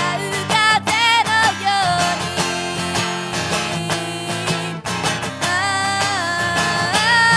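A girl singing a pop-rock song to her own strummed guitar accompaniment. The sung line comes in short phrases at first, gives way to mostly strumming for a few seconds, then returns with long held notes in the second half.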